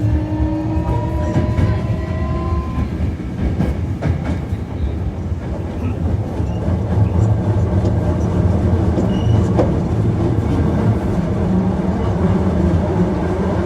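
Hankyu 1300 series train with a Toyo IGBT VVVF inverter accelerating: the motor whine rises in pitch over the first few seconds and then fades out, leaving a steady low rumble of wheels on the rails with occasional faint clicks from rail joints.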